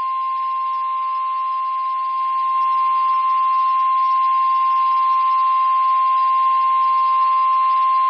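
Emergency Alert System warning alarm tone, the 1050 Hz single tone of NOAA Weather Radio, sounding as one loud, steady tone over faint radio hiss. It signals that a severe thunderstorm warning is about to be read.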